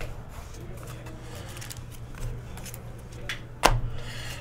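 Trading cards and cardboard hobby boxes being handled on a table: faint rustling, then one sharp knock a little over three and a half seconds in as something is set down.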